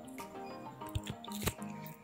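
Quiet instrumental background music with held notes and a few short percussive notes.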